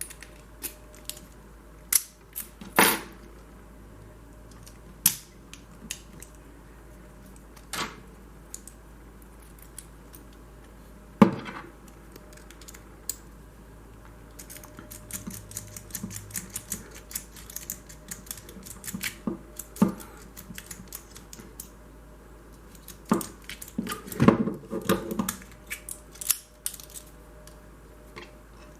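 Lock picks working inside a Hyper Tough 45 mm padlock: scattered sharp metallic clicks and clinks, with stretches of quick, light rattling ticks.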